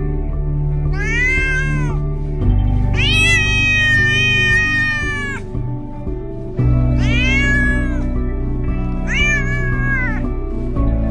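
Domestic cat meowing four times, the second meow long and drawn out, over steady background music.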